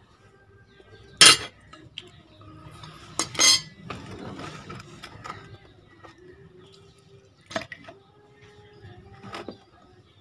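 Metal spoon and crockery clinking as a fried egg yolk is lifted from a frying pan onto a ceramic plate and the plate is handled. The loudest clink comes about a second in, two more come close together around three and a half seconds, and a couple of lighter ones follow later.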